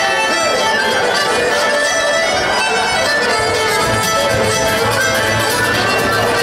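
Instrumental Irish traditional tune played live on fiddle, button accordion and acoustic guitar, with a low bass note holding from about four seconds in.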